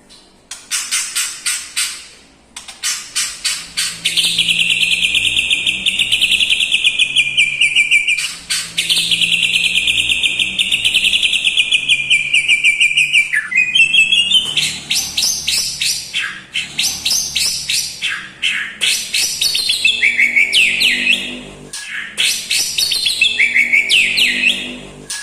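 White-rumped shama (murai batu) singing a loud, fast song packed with mimicked phrases of lovebird and bulbul songs. It opens with quick ticking trills, goes into two long, rapid chattering runs, the second starting about 8 seconds in, and ends with varied whistled phrases that slide down in pitch.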